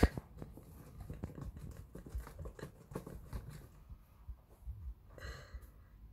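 A sharp knock, then a run of small scratches and taps as a cat inside a cardboard box bats at a feather wand toy and paws the cardboard; a brief rustle about five seconds in.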